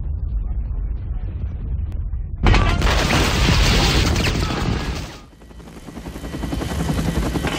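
Cinematic intro sound effects: a low rumble, then a sudden loud boom about two and a half seconds in that fades away by about five seconds. Helicopter rotor noise then fades in and builds toward the end.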